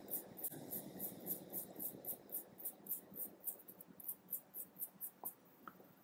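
Small brush scrubbing the stripped end of a coaxial cable, folding the braid back over the sheath: quick, even scratchy strokes, about three or four a second. The strokes stop about five seconds in, followed by a few faint ticks.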